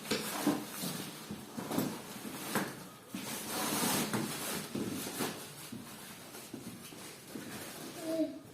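Fabric rustling and scraping with scattered knocks as a folded Baby Trend Pack n Play playard is pushed into its worn fabric carry bag.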